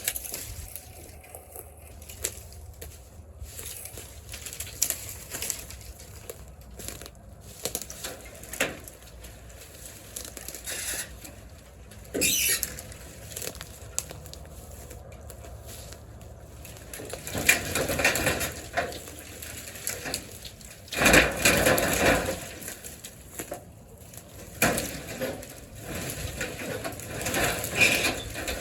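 Irregular crunching, crackling and knocking of brush and debris being handled, with louder rustling spells about two thirds of the way through.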